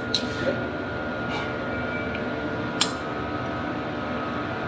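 Steady mechanical hum like a fan running, with three sharp metal clicks of pliers working a fitting on a copper refrigerant tube, the loudest near the three-second mark.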